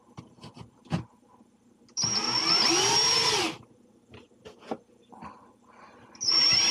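DeWalt cordless drill-driver running a screw into a wooden spacer. Its motor runs in two bursts, each rising in pitch and then dropping away as the trigger is let off: the first about two seconds in, lasting about a second and a half, the second starting near the end. Small handling clicks come in between.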